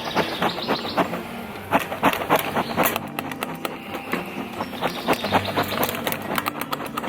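A beehive being opened and handled: irregular sharp clicks and knocks of wooden hive parts and the feeder, over a steady low hum.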